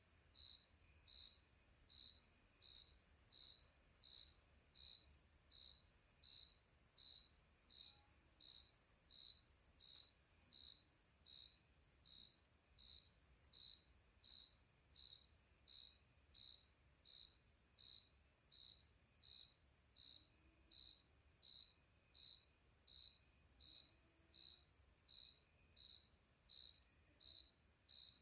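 A single insect chirping faintly in a steady, even rhythm, about one and a half high-pitched chirps a second.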